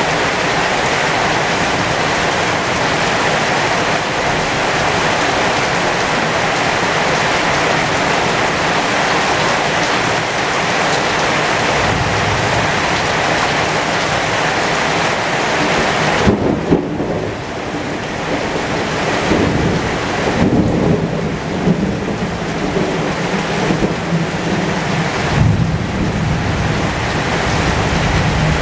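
Heavy rain pouring onto the leaves of a pomegranate tree as a steady hiss. About halfway through, thunder rumbles in low and uneven, rolling in several swells.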